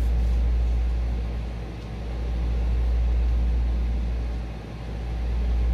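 Steady low mechanical hum with a hiss like moving air, swelling and easing about every three seconds.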